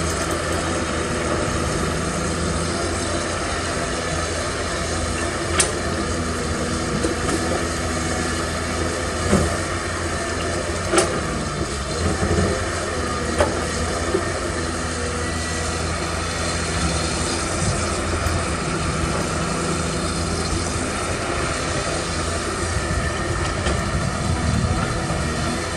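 Caterpillar 320D excavator's diesel engine running steadily under load as the machine swings and moves its arm, with a few sharp knocks, the loudest about eleven seconds in.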